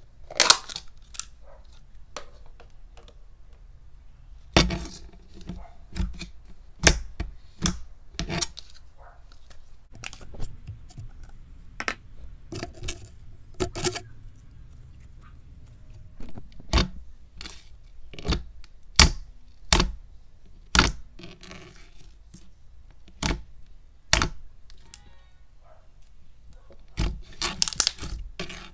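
Thick, glossy homemade glue slime being pressed and stretched by hand, giving irregular sharp clicks and pops with short squishy rustles between them.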